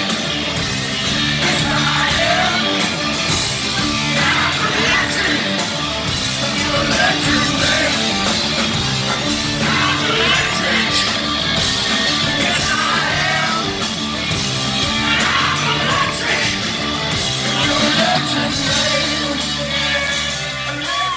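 Rock band playing live in a large hall: drums and electric guitar, with the male lead singer singing and yelling over them.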